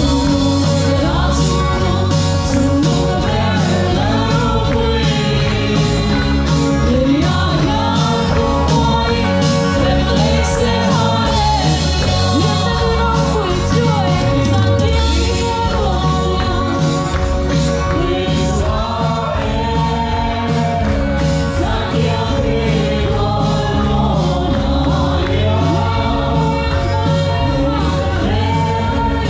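Gospel worship song: voices singing together over instrumental accompaniment with a steady beat.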